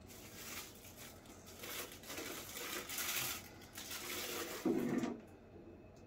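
Irregular rustling and scraping of packaging being handled during a statue unboxing, with a short dull knock about four and a half seconds in.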